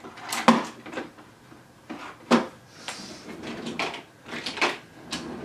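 Rummaging through a vanity drawer full of makeup: compacts, tubes and bottles clicking and knocking against each other as they are moved about. The knocks come irregularly, the loudest about half a second in and just after two seconds.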